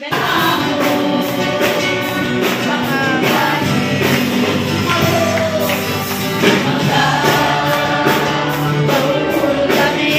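Live worship song: a man singing into a microphone and strumming an amplified acoustic guitar, over a steady beat.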